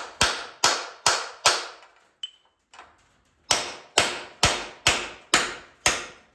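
Hammer blows on steel, knocking a rivet loose from a truck frame: four sharp, ringing strikes about two a second, a pause of about two seconds, then six more at the same pace.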